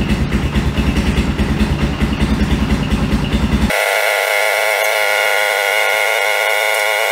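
Honda XR650R's single-cylinder four-stroke engine idling just after starting, warming up the fresh oil, with a fast, regular low thump. About three and a half seconds in, the low thump cuts out abruptly and a steady, higher-pitched drone carries on.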